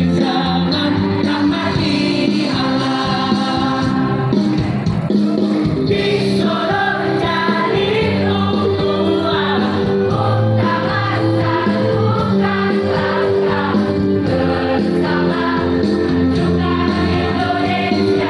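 A large choir of girls and women singing together in unison, a lively song with held notes and no break.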